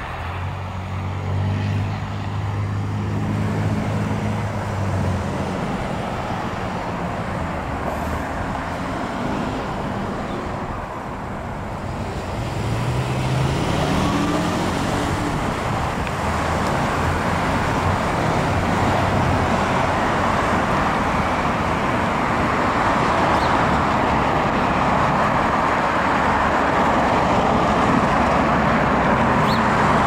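Road traffic at an intersection. An engine runs at a steady pitch for the first five seconds or so; about halfway through, another vehicle accelerates away with a rising engine pitch. After that, a steady rush of tyre and engine noise from passing cars grows louder toward the end.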